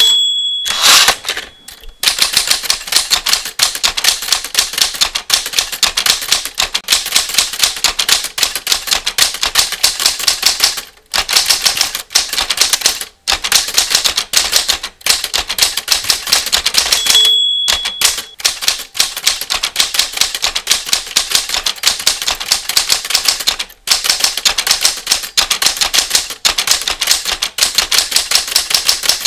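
Typewriter keys striking in a fast, steady run of clicks. Twice the end-of-line bell dings, right at the start and again about 17 seconds in, each followed by a brief louder sweep of the carriage return.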